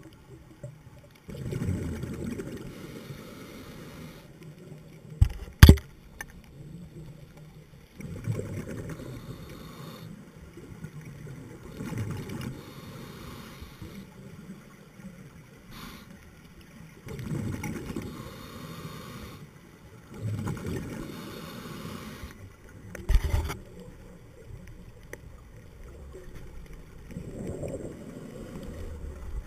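Scuba diver's breathing heard through an underwater camera housing: muffled bubbling of exhaled air about six times, a couple of seconds each, every few seconds. Two sharp knocks, the louder about five and a half seconds in and another about twenty-three seconds in.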